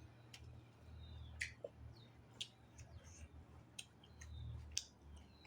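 Eating sounds: scattered sharp, wet mouth clicks and lip smacks from chewing, about ten spread unevenly, over a faint steady low hum.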